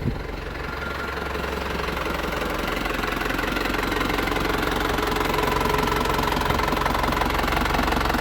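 The Holden Rodeo's 2.8 turbo diesel 4JB1T four-cylinder idling with a steady diesel clatter, freshly started.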